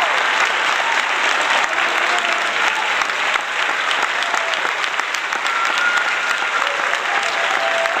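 Applause: a steady, dense patter of many claps, with a few faint brief tones heard over it.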